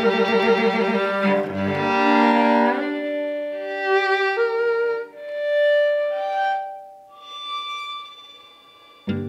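Violin and cello playing a slow duet in long bowed notes, full at first, then thinning to single held notes that fade. A single sharp plucked note sounds near the end.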